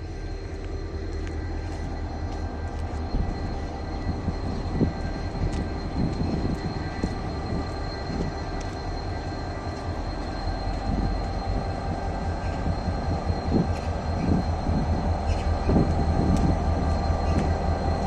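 GM-EMD GT26CW-2 diesel-electric locomotive idling, its EMD 16-645 two-stroke V16 diesel running with a steady low hum, growing louder toward the end, while the freight train waits to depart.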